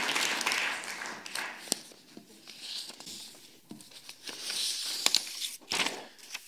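Audience applause dying away over the first second or so, then a quiet room with faint rustling of paper and scattered small knocks.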